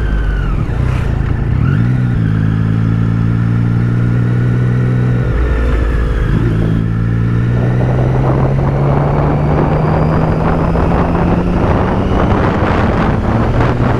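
Triumph Street Triple 675's three-cylinder engine running under way. Its pitch rises about two seconds in, dips briefly about five seconds in, then climbs steadily as the bike accelerates. Wind rush on the microphone grows over the second half.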